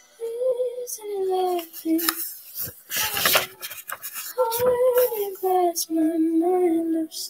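A child singing a slow melody in long held notes, with a brief rustle about three seconds in.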